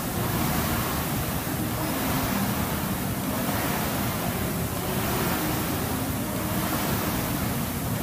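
Concept2 rowing machine's air-resistance flywheel whooshing at a sprint pace, swelling with each drive and fading on the recovery, about one stroke every second and a half.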